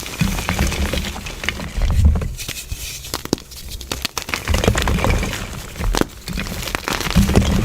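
Gym chalk being crushed: dense, irregular crunching and crackling with soft low thumps.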